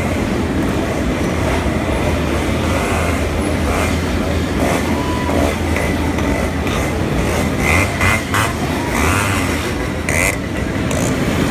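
A pack of Yamaha RX single-cylinder two-stroke motorcycles running together as they ride past, a loud, steady, dense engine din.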